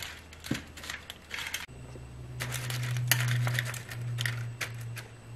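Dry sweet-potato-starch glass noodles being laid into a shallow aluminium tray and pressed down, a scatter of light crackles and clicks, with the plastic bag crinkling. A steady low hum starts just under two seconds in.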